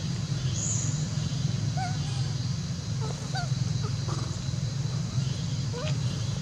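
Macaques giving short squeaky calls, a few scattered through, over a steady low rumble.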